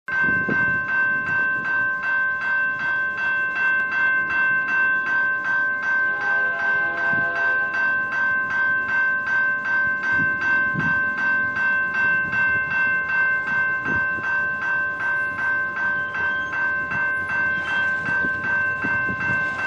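Railway level-crossing warning bell ringing in steady, rapid strikes, about two and a half a second, activated by an approaching train. A distant train horn sounds faintly from about six seconds in.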